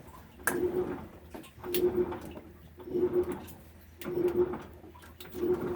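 Samsung top-load washing machine agitating: the drive motor hums in short pulses about every 1.2 seconds, each starting with a click as the drum is driven back and forth.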